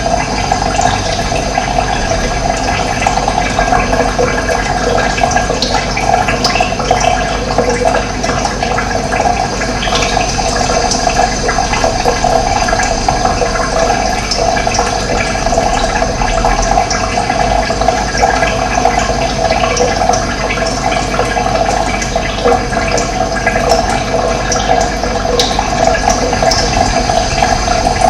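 Running water flowing steadily, with many small splashes.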